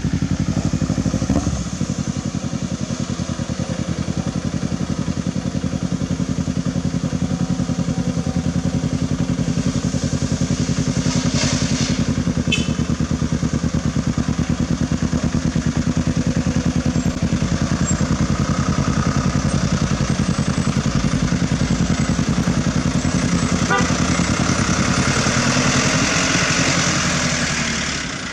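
A motorcycle engine running steadily, its firing pulses even and unbroken. There is a brief high squeak about eleven seconds in, and the sound fades out at the very end.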